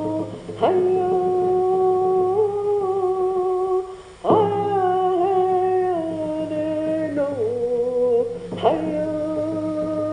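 A voice humming long held notes that step slowly from pitch to pitch, with short breaks for breath about half a second in, about four seconds in, and near the end.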